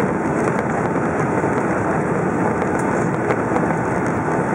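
Steady engine and airflow noise of a Boeing 757 heard inside the passenger cabin as the airliner rolls along the ground after landing, with a few faint ticks.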